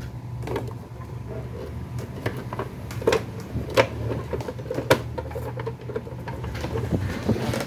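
Hard plastic base cover of an electric juicer being handled and fitted against its housing: scattered plastic clicks and knocks, the sharpest about three seconds, four seconds and five seconds in. A steady low hum runs underneath.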